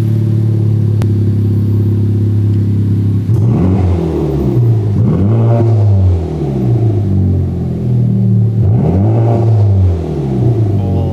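Honda Civic Type R FK8's turbocharged four-cylinder, breathing through a freshly installed Greddy DDR resonated exhaust, idling and then revved up and back down. It blips twice in quick succession a few seconds in and once more near the end, settling back to idle between.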